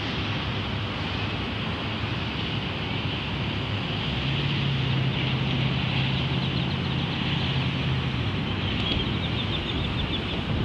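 Steady city traffic din, with a low hum for a few seconds in the middle and faint high chirping in the second half.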